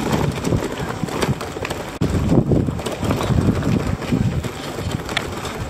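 Bicycle rattling over cobblestones, with many irregular knocks and clicks over a rumble of tyre noise and wind buffeting the microphone.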